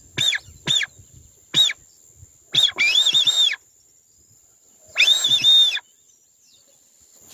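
Duck-call whistle (pio) blown to imitate whistling ducks: three short falling whistles, then two longer warbling whistles of several notes with breath hiss under them, about two and a half and five seconds in. A thin steady high insect buzz runs underneath.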